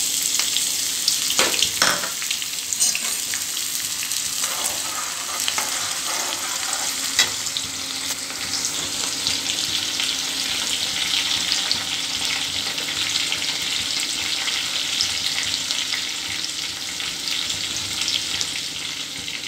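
Freshly added chopped onions frying and sizzling steadily in hot oil in a kadhai, with cumin and mustard seeds. A steel ladle stirs them, giving a few scrapes and clicks against the pan in the first several seconds.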